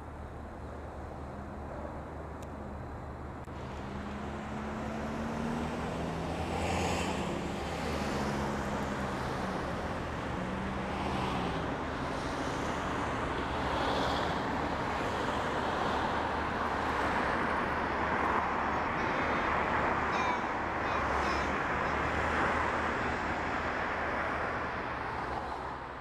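Construction-site and road-traffic din: a steady rumble and hiss that grows louder over the first several seconds. Over it a heavy engine hums, its pitch rising and falling, with a few short knocks.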